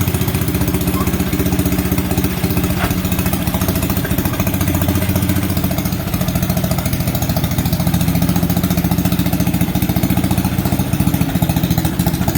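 Engine idling steadily with a fast, even pulse, its speed shifting slightly a couple of times.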